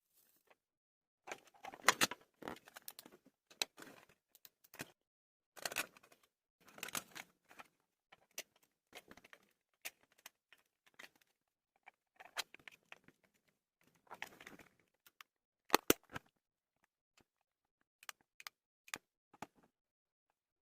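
Hands working on a small LED torch: irregular clicks, taps and rattles of its parts being handled and taken apart, with two sharp clicks in quick succession late on.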